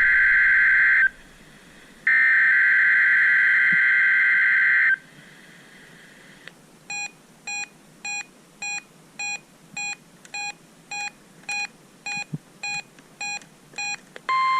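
NOAA Weather Radio SAME header bursts for a Required Weekly Test: two long, harsh digital data bursts, separated by a short gap, that end about five seconds in. After a pause comes a run of about thirteen short electronic beeps, a little under two a second.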